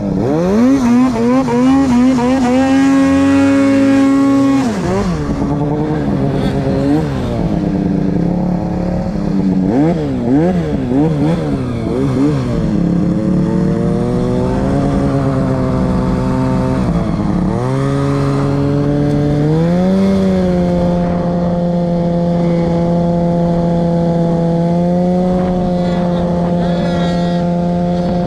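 Two-stroke snowmobile engine under the rider: revving hard about a second in and holding high, then rising and falling with quick throttle changes, dipping once and settling into a steady run for the last stretch.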